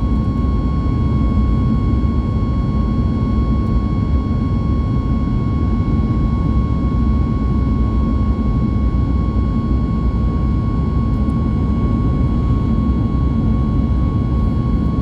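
Cabin noise inside a Boeing 737 MAX 8 in flight: a steady, loud low rumble of its CFM LEAP-1B jet engines and airflow, with a constant high whine over it.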